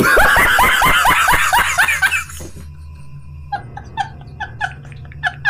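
A man laughing hard: a loud, rapid run of 'ha's for about two seconds, then after a short lull a string of quieter, spaced laughs.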